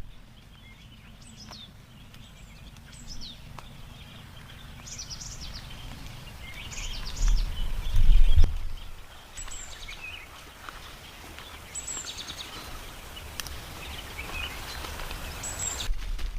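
Small birds chirping repeatedly in short high calls over a low outdoor rumble, with a louder low rumble swelling briefly about halfway through.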